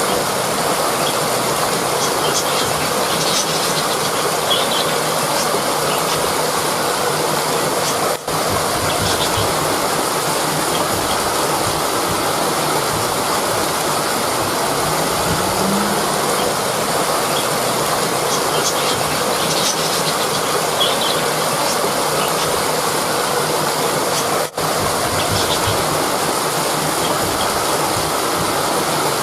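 Rushing river water, a steady loud roar of flowing water, dipping briefly twice.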